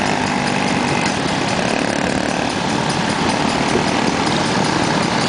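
Small single-cylinder Tecumseh engines of minibikes running steadily together, a buzzy, even drone at cruising speed.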